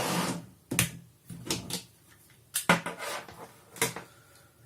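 Handling noises of a small plastic phone charger and its packaging: a brief rustle at the start, then several separate knocks and clicks.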